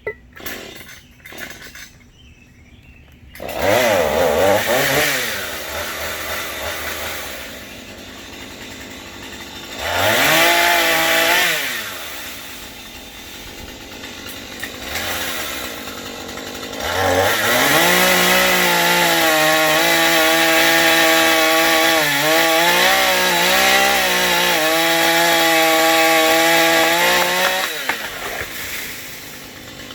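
Husqvarna 440 two-stroke chainsaw coming up to speed about three seconds in, revved twice with idling between, then held at high revs for about ten seconds with the pitch sagging and recovering as it cuts into a tree limb, before dropping back near the end.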